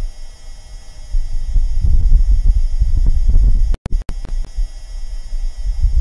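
Wind on Mars buffeting the microphone of NASA's Perseverance rover: a low, gusty rumble that swells about a second in. The sound drops out briefly around four seconds in.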